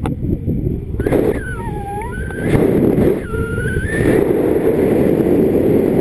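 Airflow rushing over the microphone of a paraglider in flight, a loud, low, steady rush. Two brief, wavering high tones sound about a second and a half in and again after three seconds.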